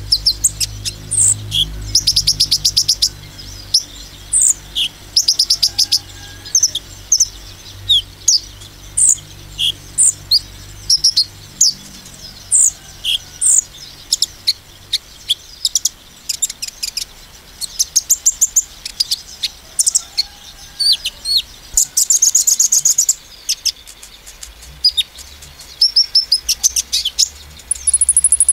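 Male konin sunbird (a purple-throated sunbird type) singing: high, thin chirps mixed with fast buzzy trills, repeated in bursts, with the longest trill a little past the middle. This is the 'nembak' shooting song that keepers use as a lure to rile other male konins.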